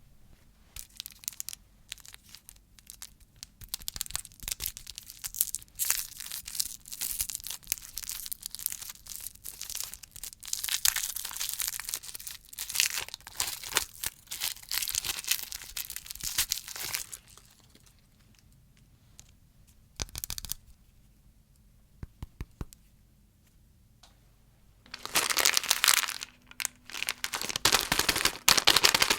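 Plastic candy wrappers crinkling and tearing as candy packets are handled and opened, a dense crackle of sharp clicks. It stops for several seconds, leaving only a few isolated clicks, then starts again loudly near the end.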